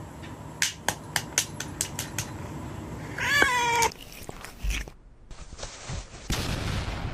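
A domestic cat meows once, a drawn-out call about three seconds in, after a run of sharp clicks.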